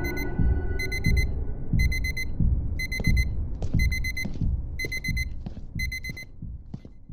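Electronic alarm beeping in quick groups of four, about once a second, stopping about six seconds in. Beneath it a low rumble fades away, with a few faint clicks.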